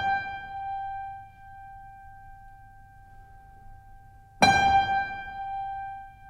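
Background music: a single sustained keyboard note still ringing out and fading, then a second note struck about four and a half seconds in that rings on.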